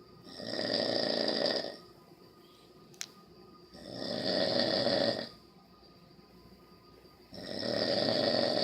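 Steady rhythmic snoring: three long snores, each about a second and a half, roughly three and a half seconds apart, with a single sharp click between the first two.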